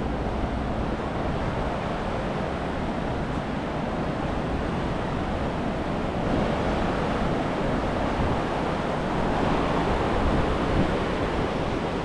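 Steady rush of flowing water from the South Platte River, swelling a little louder past the middle.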